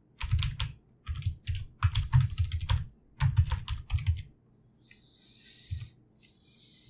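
Typing on a computer keyboard: quick runs of keystrokes for about four seconds as a username is entered, then a pause with one more keystroke later on.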